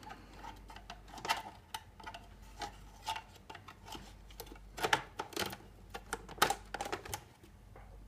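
Irregular clicks and knocks of a plastic side panel being handled and fitted back onto the casing of an HP AP5000 point-of-sale unit, with a few sharper snaps among them.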